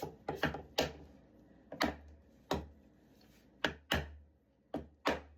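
De-nailing gun knocking nails out of timber: about ten sharp strikes, unevenly spaced, several with a deep thud.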